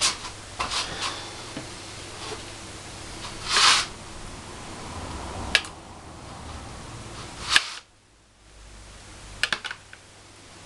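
Scattered clicks and knocks of kitchenware being handled: a metal spoon tapping and scraping a ceramic bowl of tomato sauce as sauce is ladled onto pizza dough, over a steady low hum.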